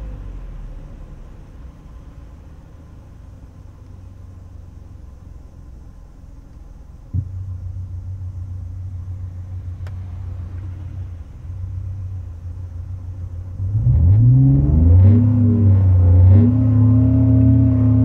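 A Clio V6 engine sound synthesized by Renault's R-Sound Effect, played through the car's speakers. A faint low rumble steps up abruptly to a louder low hum about seven seconds in, then the engine note rises and falls in a few quick revs before settling into a louder, steady, higher drone near the end.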